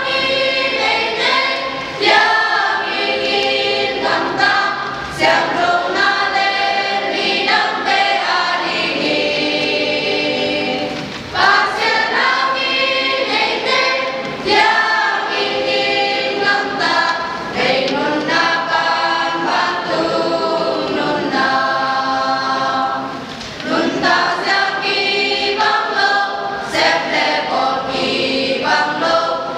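Church choir of mostly women's and girls' voices singing together unaccompanied, in long phrases with short breaks for breath.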